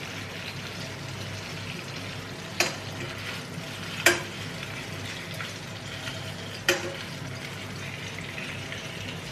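Haddock fillets sizzling in butter in a non-stick frying pan, a steady hiss, with a metal fork clicking against the pan three times as the fillets are turned.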